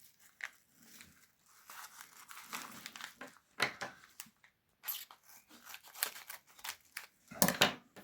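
Packaging of a small mail parcel being handled and torn open: irregular crinkling, rustling and tearing, with a louder burst of rustling near the end.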